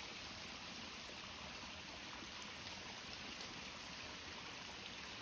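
Faint, steady running water of a small stream flowing.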